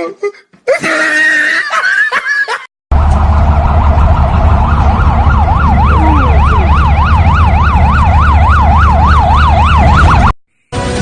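Police-style siren in a fast up-and-down yelp, about three to four sweeps a second, over a loud, distorted rumble. It comes in after a couple of seconds of voice and cuts off suddenly near the end.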